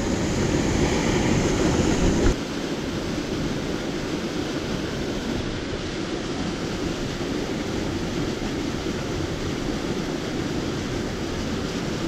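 Steady rushing of a small mountain stream's flowing water. About two seconds in it turns abruptly a little quieter and duller.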